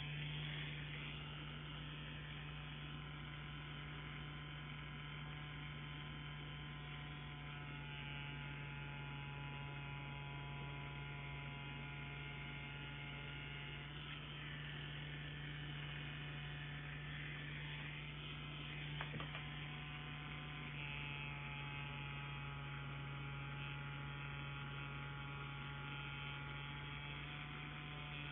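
Solong CNC Q5 wireless rotary tattoo pen running, a steady electric buzz of its motor driving the needle.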